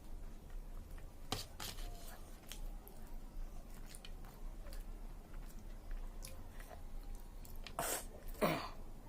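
A person chewing a mouthful of chicken biryani close to the microphone: scattered wet mouth clicks and smacks, with two louder ones near the end.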